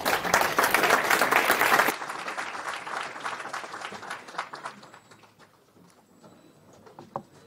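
Audience applauding, loud for about two seconds, then thinning out and dying away over the next few seconds.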